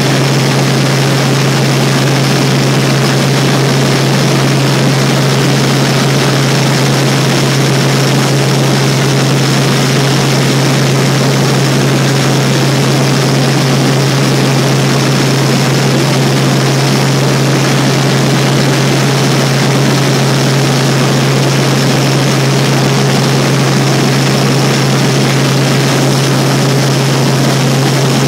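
Helicopter engine and rotor noise in flight, heard from inside the cabin: a loud, steady drone with a strong low hum under an even rush of noise.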